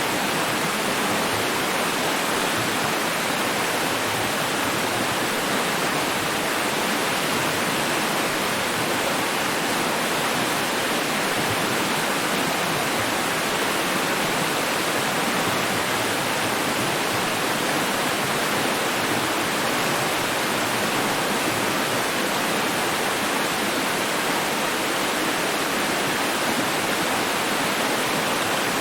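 Running water: a steady, even rush that stays the same throughout.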